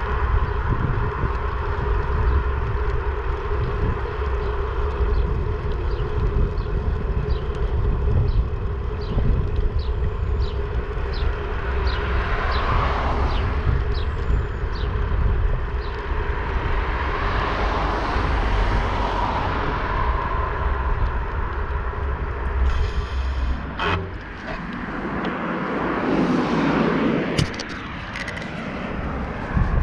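Wind buffeting a handlebar-mounted camera microphone while riding a bike lane beside traffic, with road rumble and a steady hum. Cars swell past twice in the middle. About three-quarters of the way through there is a sharp click, and the wind rumble drops as the rider slows; another car passes near the end.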